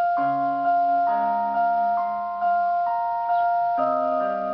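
Instrumental introduction to a song: a keyboard plays held chords with a melody on top. New chords come about every second, each fading slowly.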